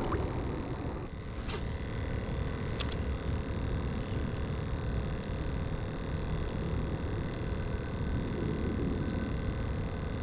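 Steady low rumble of wind buffeting the microphone, with two sharp clicks about one and a half and three seconds in.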